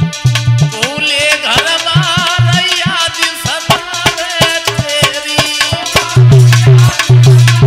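Holi folk song music: a hand-drum rhythm with a wavering melodic lead line over it and no words sung, then heavy, deep drum strokes come in strongly about six seconds in.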